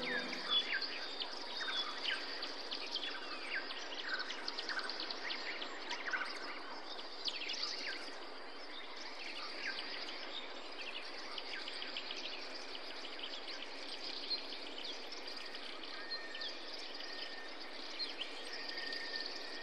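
Woodland ambience: many birds chirping in short, quick falling calls over a steady even hiss. A thin steady whistle-like tone joins near the end.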